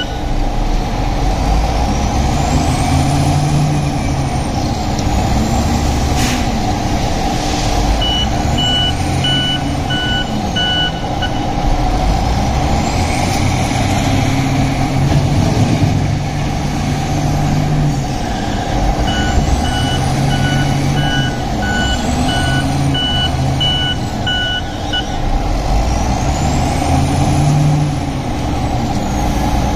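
Diesel wheel loader at work loading a dump truck: its engine revs up and down over and over with a whine that rises and falls, and its reversing alarm beeps steadily in three spells as it backs away. One sharp clank about six seconds in.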